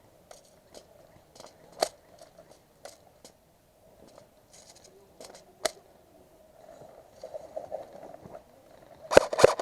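Scattered single sharp clicks, then near the end a rapid burst of airsoft gun fire, several shots a second.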